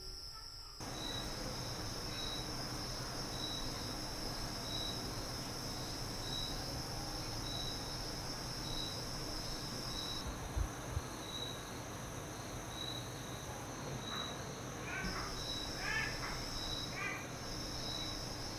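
Crickets at night: a steady high trill, with a second, evenly repeating chirp. Two soft thumps about midway, and a few short high calls near the end.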